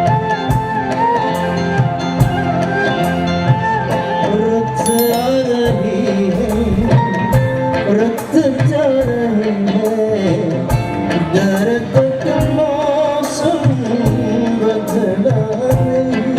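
Live dangdut band playing: a steady hand-drum beat under a wavering lead melody.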